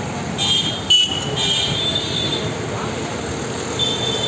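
Express train's coaches running past with a steady rumble, the wheels squealing high in bursts, and a single thump about a second in.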